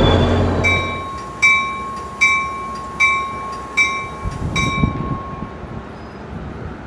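A railroad bell rings six strokes, about one every three-quarters of a second, and then stops, over the low rumble of an arriving diesel push-pull passenger train. A loud low drone fades out in the first second.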